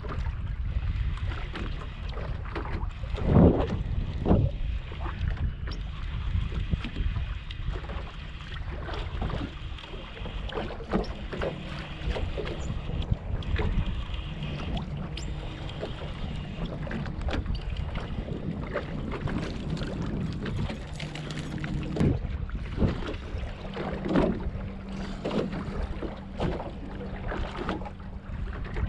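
Wind buffeting the microphone over water lapping at a small boat's hull, with two thumps about three and four seconds in. From about ten seconds in an electric trolling motor hums steadily, its pitch stepping up near the end as it holds the boat over the spot.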